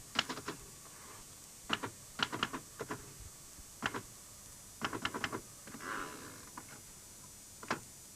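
Typewriter keys struck in short bursts of a few clacks each, with irregular pauses between the bursts.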